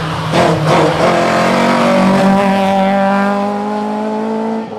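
Historic rally car's engine pulling at high revs, its note held and slowly rising for several seconds before it cuts off near the end.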